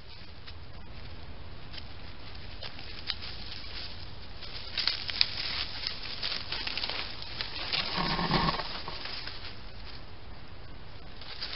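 European badger moving through dry leaves and undergrowth: scattered rustles and crackles over a trail camera's steady low hum, with a short louder low noise about eight seconds in.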